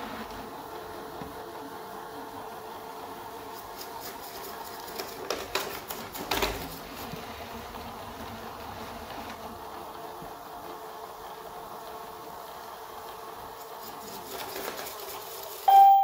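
Ecovacs Deebot 901 robot vacuum running as it drives itself back to its charging dock: a steady whir from its fan and brushes, with a few knocks in the middle. Near the end it gives a short electronic beep and the motor cuts off as it docks.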